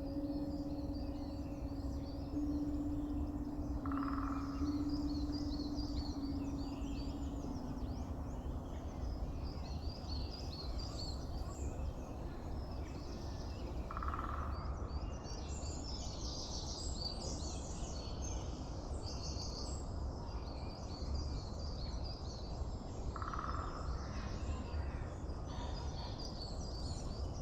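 Recorded bird song: many small birds chirping and trilling over a steady low outdoor rumble, with a lower call repeating three times roughly ten seconds apart.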